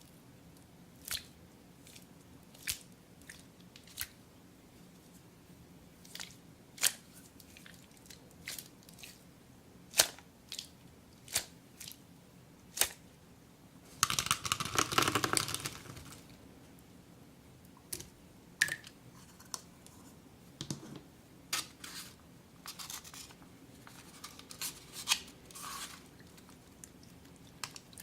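Hand-crafting sounds from making an Orbeez slime mesh squishy ball: a scattered series of sharp clicks and snips, with one louder rustling, crunching burst lasting about two seconds near the middle.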